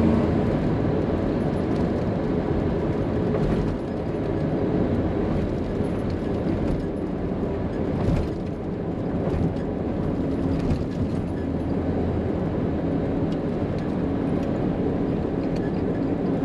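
Steady engine and road noise inside the cab of a 1989 Chevrolet C2500 pickup under way, with a few short squeaks from the worn bench-seat springs now and then.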